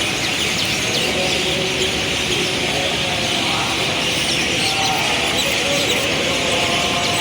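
City street ambience: a steady traffic hum with many small birds chirping and twittering throughout.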